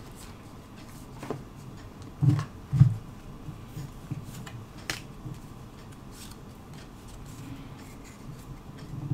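Pokémon trading cards handled and slid against one another, with light clicks and rustles of card stock, a sharper snap about five seconds in, and two soft low thumps a little past two seconds in.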